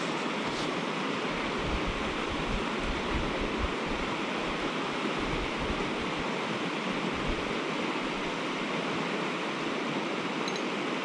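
Fast mountain river rushing steadily over rocks in a riffle. Wind rumbles on the microphone now and then in the first half.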